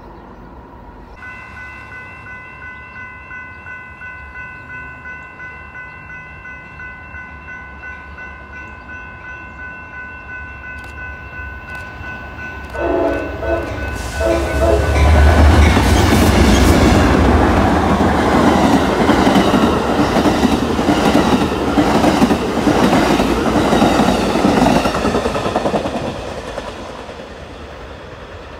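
Grade-crossing warning bells ringing steadily as a freight train approaches, with short train-horn blasts about 13 seconds in. Then a passenger train passes at speed, its wheels clacking rhythmically over the rail joints, and fades away.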